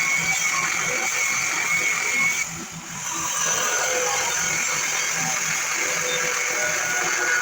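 Power saw with a DeWalt blade cutting through heavy steel angle iron, running steadily with a high metallic ring. It eases off briefly about two and a half seconds in, then carries on cutting.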